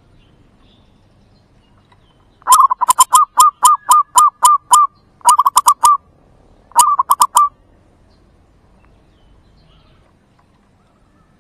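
Zebra dove (merbuk) singing loud, rapid staccato cooing notes: a long run of over a dozen notes, then two short runs of a few notes each, about a second apart.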